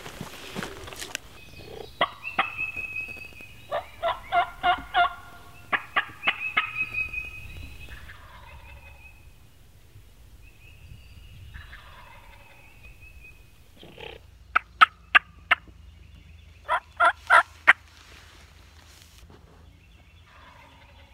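Wild-turkey yelping: several runs of short, sharp yelps at about three a second. The loudest are two runs of four notes each in the second half.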